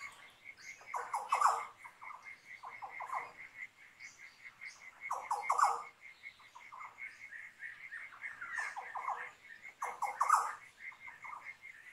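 Nature recording from the Australian bush: a cricket chirps in a steady, even pulse throughout, while a bird calls in short bursts of rapid repeated notes every second or two. The bird bursts are the loudest sounds.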